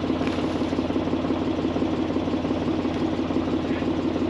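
Farm tractor's diesel engine idling steadily with an even, low pulse.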